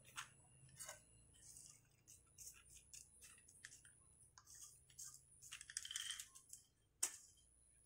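Small pumice stones poured from a cup onto a potted cactus as top dressing, then pushed around with a plastic scoop. The sound is faint, scattered clicking and rattling of stone on stone, with one sharper click about seven seconds in.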